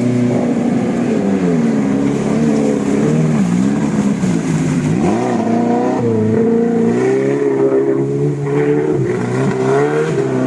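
Modified off-road 4x4's engine revving under load, its pitch repeatedly rising and falling, with two deep dips in revs around the middle.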